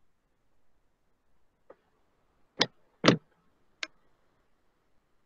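Four short, sharp clicks or taps, irregularly spaced over about two seconds, starting about a second and a half in; the first is faint and the third is the loudest.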